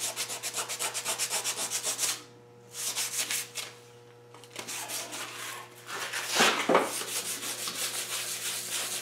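Rapid back-and-forth hand sanding of a mini bike's chrome chain guard, about five strokes a second, with two short pauses in the first half. The chrome is being scuffed so that paint will stick.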